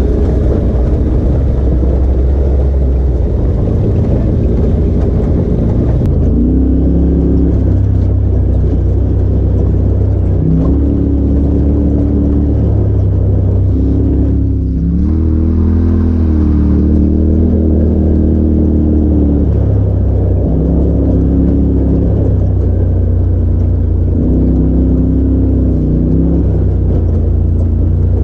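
Side-by-side UTV engines running at varying throttle, heard from the driver's seat on a rough dirt trail, the engine note rising and falling. The sound switches to a different machine about six seconds in.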